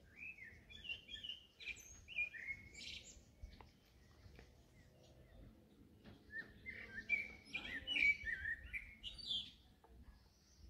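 A songbird singing two warbled phrases of quick, gliding notes, the second one louder, a few seconds apart.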